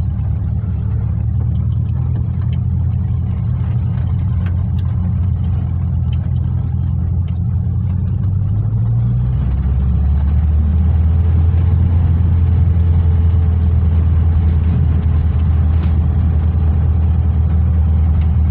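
VW Kombi van's engine running as it drives along a dirt road, heard from inside the cab as a steady low drone. About halfway through, the engine note drops lower and the drone gets louder.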